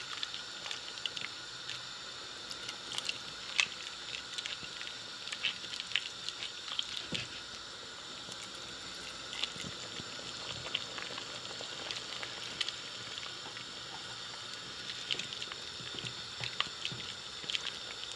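Chicken and sweetcorn soup, thickened with cornflour, simmering in a pan: a steady bubbling hiss with many small scattered pops.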